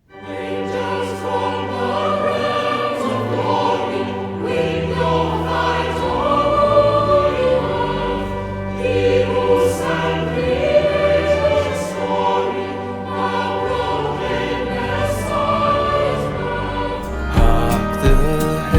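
Recorded choir singing a Christmas carol, starting suddenly out of silence with sustained chords. The music changes near the end.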